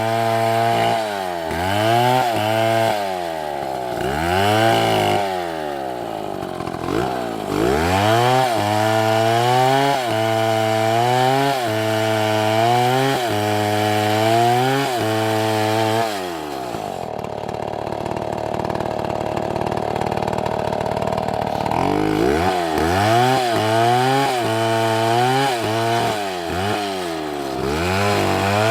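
Chainsaw engine revving up and down over and over, its pitch rising and falling every second or two as it cuts wood. About 16 s in it settles to a lower, steadier sound for roughly six seconds, then revs up and down again.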